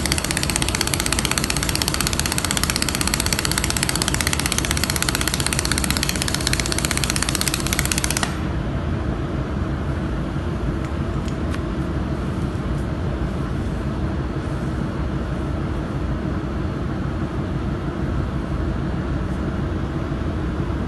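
Handheld laser welder crackling and hissing as it welds galvanized steel sheet. The crackle cuts off suddenly about eight seconds in, leaving a steady low machine hum.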